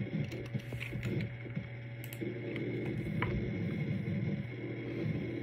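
Room tone: a steady low hum with a few faint clicks.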